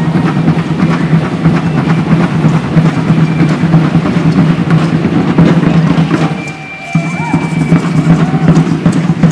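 Loud, fast, dense drumming, as of many drums beaten together. It drops away briefly about six and a half seconds in.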